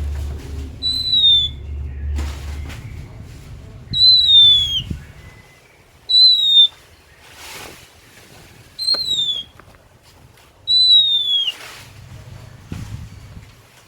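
Oriental magpie-robin (kacer) whistling: a short, clear, downslurred note repeated five times, a couple of seconds apart.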